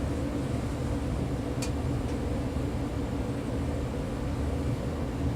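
A steady low hum with several steady tones in it, and a short faint tick about a second and a half in.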